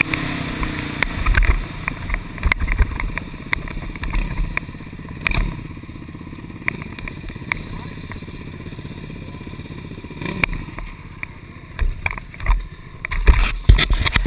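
ATV engine winding down from speed and then running low and steady with a pulsing burble, with sharp knocks and rattles from the machine moving over rough ground. Near the end it gets louder, with heavier thumps.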